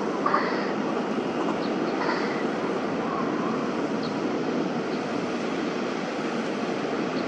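Winter snow ambience: a steady, even rushing noise, with a few faint short chirps early in the first seconds.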